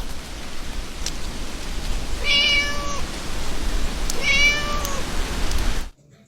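A domestic cat meowing twice, each meow under a second and fairly level in pitch, over a steady hiss that cuts off suddenly near the end.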